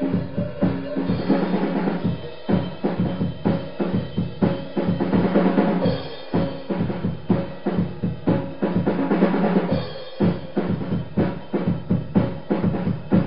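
Music with a drum kit playing a fast, busy beat of bass drum and snare hits over held low notes.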